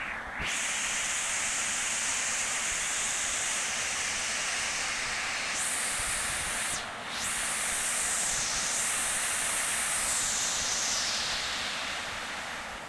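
Heavy rain falling, a steady hiss that dips briefly about seven seconds in and eases off near the end.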